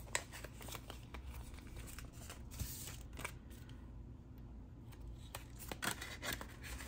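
Paper banknotes being handled: faint, intermittent rustles and crinkles of bills, with a short lull about midway.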